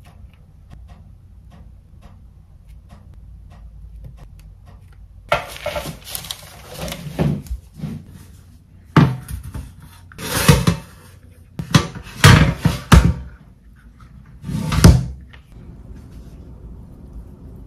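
Close-up kitchen handling sounds: faint light taps at first, then from about five seconds in a run of short noisy swishes and several sharp knocks, the loudest near the end.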